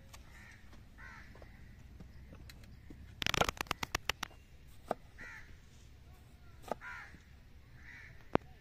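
Crows cawing several times. About three seconds in there is a fast run of sharp clicks lasting about a second, the loudest sound, with a few single sharp knocks later.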